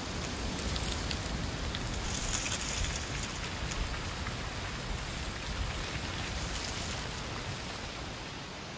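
Steady rain falling in woodland: an even hiss with a few faint drip ticks, easing slightly near the end.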